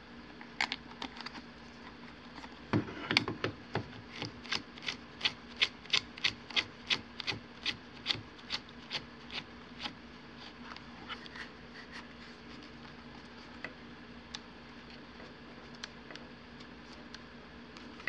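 A battery grip being fitted to a Nikon D850 camera body: a few knocks as it is seated against the camera, then a run of even clicks, about three a second for some seven seconds, as it is screwed on by hand, then a few faint ticks as it is settled in place.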